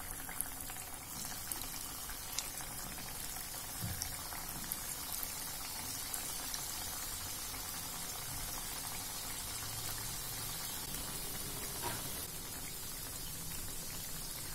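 Hot oil in a kadhai sizzling steadily around steamed coriander and gram-flour vadi slices as they are laid in one by one to fry, with a few faint ticks.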